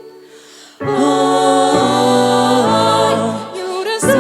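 A vocal group singing in several-part harmony. After a soft fading moment, the voices come in loudly together about a second in and hold sustained chords that shift twice, then take a brief breath before starting the next phrase.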